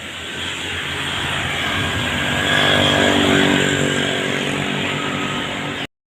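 A motor vehicle's engine running close by, growing louder to a peak about three seconds in, then the sound cuts off abruptly near the end.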